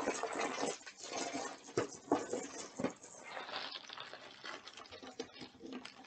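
Plastic packaging rustling and crinkling as it is handled, with a few sharp clicks about two to three seconds in.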